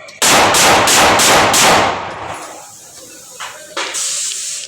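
HS9 subcompact 9mm pistol being test-fired in a rapid string of about six shots in under two seconds. A few fainter clicks and a high hiss follow near the end.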